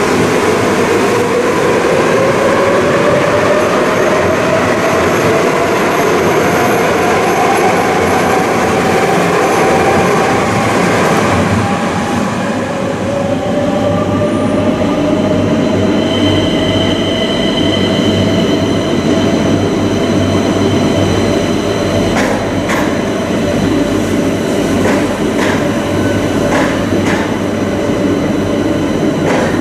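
Madrid Metro trains in an underground station: one pulls out with its traction motors whining steadily higher in pitch. After a cut, another runs in along the platform, with a brief high wheel squeal and, near the end, a run of clicks over the rail joints.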